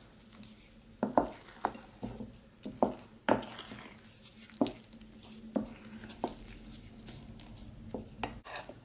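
Wooden spoon stirring thick pancake batter in a ceramic bowl, clacking irregularly against the bowl's sides, about a dozen knocks with wet stirring between them.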